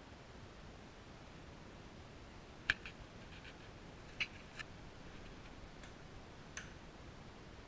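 Quiet room hiss with a few light, sharp clicks and taps spread through it, the loudest about three seconds in.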